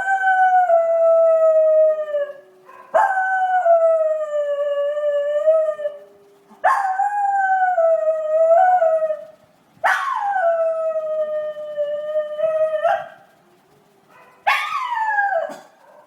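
A schnauzer howling: five long howls with short pauses between them, each starting high and sliding slowly down in pitch. The last howl is shorter and drops more steeply.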